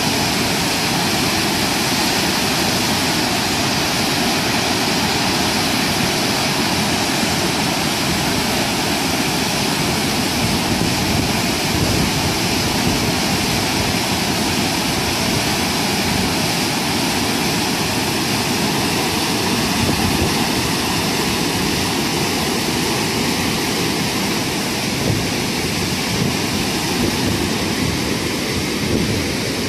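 Floodwater pouring over a low weir and churning white below it: a steady, loud rush of falling water.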